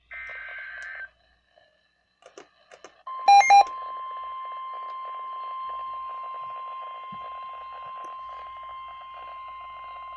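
NOAA Weather Radio alert: the tail of a SAME digital header burst, a warbling data squeal, ends about a second in. After a short gap with a few faint clicks, the steady 1050 Hz weather radio warning alarm tone starts about three seconds in and holds. Two short, very loud beeps sound just as the tone begins; the tone announces a severe thunderstorm warning.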